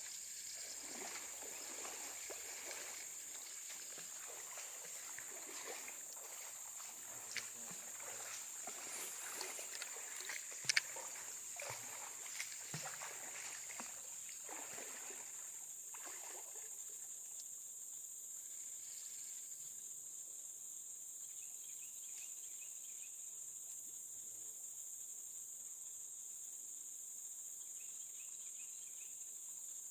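A steady, high-pitched chorus of crickets or other insects. Over it, through roughly the first half, come scattered rustling, crackling and knocking sounds, with one sharp click about 11 seconds in, after which only the insects remain.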